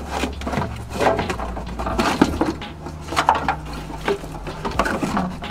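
Plastic interior trim of a car being pried loose and handled inside the cabin: an irregular run of clicks, knocks and rattles.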